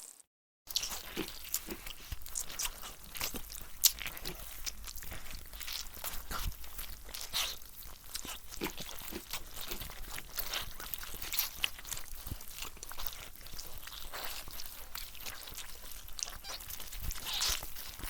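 Zombie sound effect of eating flesh: a steady stream of irregular crunching and chewing, with many small sharp crackles.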